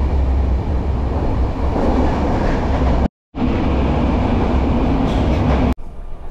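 Jan Shatabdi Express passenger train running: a loud, steady rumble of wheels and carriage. It cuts off suddenly for a moment about three seconds in, then returns, and drops abruptly to a quieter run near the end.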